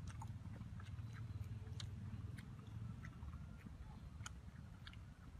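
Someone chewing crusty bánh mì close to the microphone: scattered small crunching clicks over a low steady rumble.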